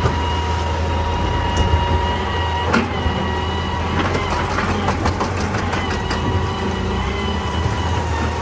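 Excavator's diesel engine running steadily with a steady high whine over it. A sharp knock comes near three seconds in, then a quick run of knocks and clatters of stone over the next two seconds.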